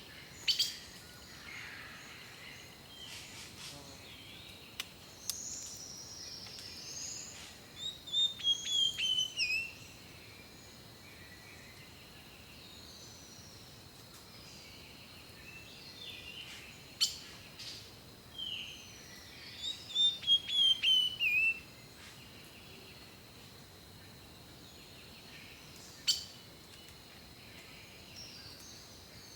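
Songbirds singing. Twice a bird gives a quick run of notes that step down in pitch, and short chirps and sharp single calls come in between, over a faint steady high tone.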